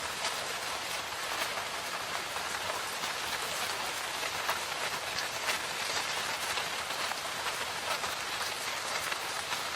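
Steady rain falling in a forest, an even hiss with many individual drops pattering on leaves and surfaces.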